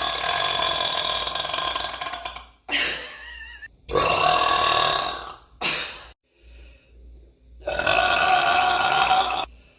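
A woman burping loudly, a run of about five long, drawn-out burps with short pauses between them, the first lasting over two seconds.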